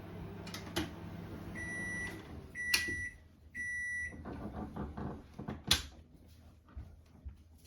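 Microwave oven finishing its cycle: the running hum stops and it gives three short, evenly spaced beeps. A few clicks and a sharp clack follow.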